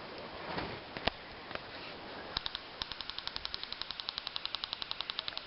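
Airsoft rifle firing: a couple of single shots, then a long full-auto burst of about a dozen shots a second starting about two and a half seconds in.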